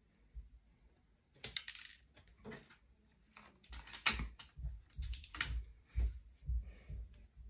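Light, irregular clicks and small metallic clinks from handling track pins and a small pin hammer on model railway track, with a few short scuffs in between.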